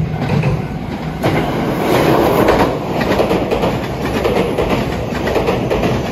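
JR West 227 series five-car electric train passing through at speed, its wheels clacking over the rail joints, loudest about two seconds in as the cars go by.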